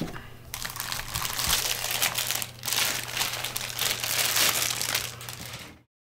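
Clear plastic packaging bag crinkling as it is handled, in uneven waves, stopping abruptly near the end.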